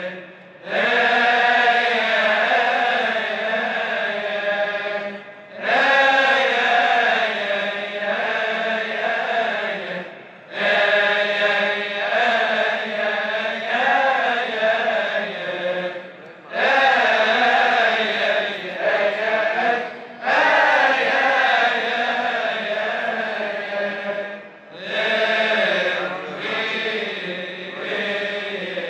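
Choir of Coptic Orthodox deacons chanting a liturgical hymn, male voices in long phrases of about five seconds each with brief pauses for breath between them.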